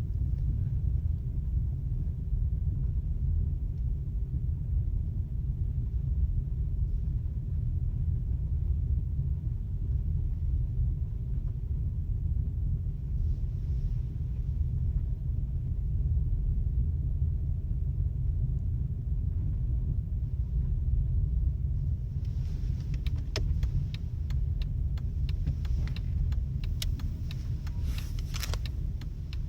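Skoda Octavia Tour running with a steady low rumble. In the last seven seconds or so there is a run of sharp clicks and ticks.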